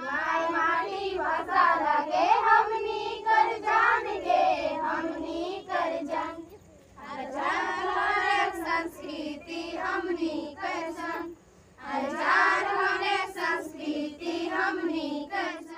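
A group of girls singing a karam folk song together in unison, in sung phrases with two short breaks, about six and a half and eleven and a half seconds in.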